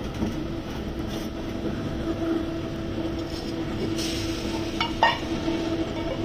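Small electric blower fan on a metal fan-assisted cookstove running with a steady hum over the burning fire. About five seconds in, a clay lid clinks down onto the clay pot, a couple of short knocks.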